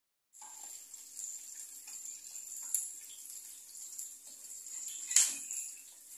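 An egg frying in oil in a small pan, sizzling steadily, with a few sharp knocks of a metal spatula against the pan, the loudest about five seconds in.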